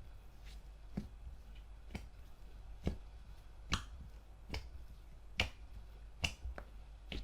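Slime being pressed and worked by hand, giving short, sharp popping clicks at an even pace of about one a second.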